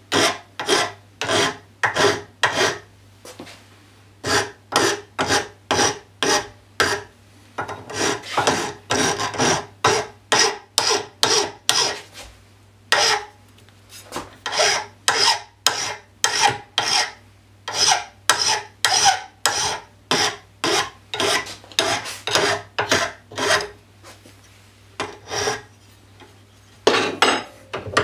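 A hand file stroking back and forth across the hacksawed end of a clamping lever's threaded stud held in a bench vise. The strokes come about two a second, in runs broken by brief pauses.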